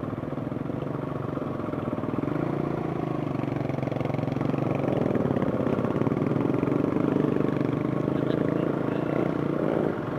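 Dirt bike engine running while being ridden, the revs rising and falling with the throttle and dropping shortly before the end.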